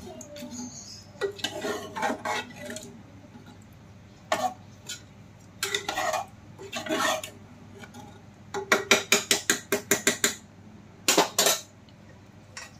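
A metal spoon stirring curry in a metal pressure cooker, scraping and clinking against the sides of the pot in short, separate bouts. About two-thirds of the way through comes a quick run of sharp clinks, several a second, and a last short clatter near the end.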